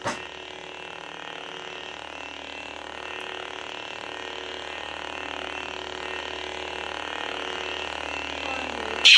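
Lightsaber idle hum from a Crystal Focus v8 soundboard, played through a 2-watt 28mm bass speaker: a steady buzzing hum that swells slightly. A click comes right at the start, and a loud, harsh effect sound cuts in suddenly near the end.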